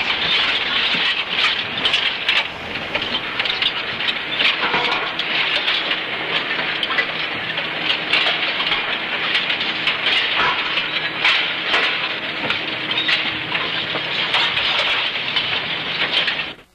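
Scrap iron clattering as it is dumped onto a scrap heap: a dense, continuous rattle of many metal pieces striking one another, which cuts off suddenly near the end.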